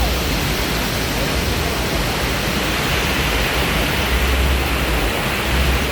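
Steady rushing noise with a low rumble beneath it, holding an even level without breaks.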